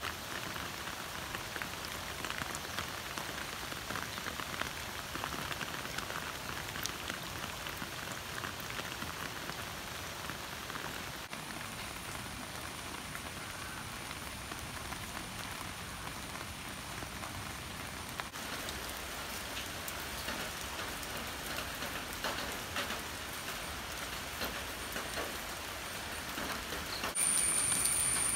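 Rain falling steadily on leaves and grass and into a puddle, a dense hiss full of small drop ticks. Near the end a louder, steady high-pitched tone comes in over it.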